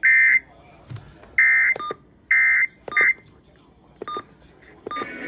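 Emergency Alert System end-of-message data bursts: several short, loud, buzzing bursts of digital data tones about a second apart, marking the end of a severe thunderstorm warning broadcast.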